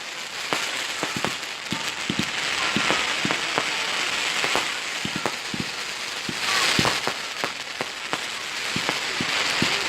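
Fireworks going off: an irregular run of sharp bangs over stretches of dense crackling hiss, the crackle loudest about two-thirds of the way through.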